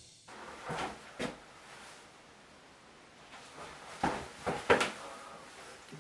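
Faint, scattered knocks and clicks of things being handled in a small room, two about a second in and a cluster of several about four to five seconds in.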